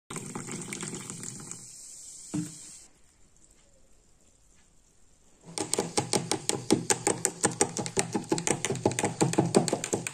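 Carbonated soda pouring in a stream into a glass, stopping after about two and a half seconds with a single knock. After a short lull, a fast run of sharp crackling clicks fills the second half.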